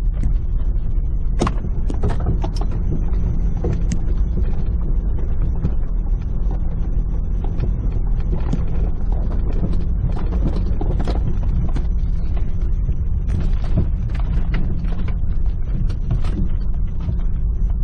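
Jeep Cherokee XJ's engine running with a steady low rumble, heard from inside the cab while moving slowly over a bumpy driveway. Scattered clicks and knocks come from the body and interior rattling over the bumps.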